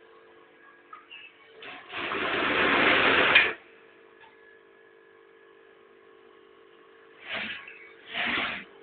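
Three-head hair wefting sewing machine running in short bursts: one run of about a second and a half that cuts off suddenly, then two brief runs near the end, over a faint steady hum.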